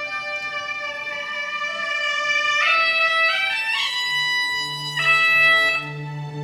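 Suona (Chinese double-reed horn) playing long held notes that step up and down in pitch, the opening of a traditional solo. A low steady drone of accompaniment comes in about four seconds in.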